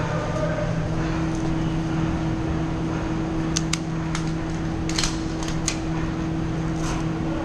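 Steady mechanical hum, with sharp snaps of airsoft guns firing: a pair about three and a half seconds in, and a quick cluster of four around five seconds in.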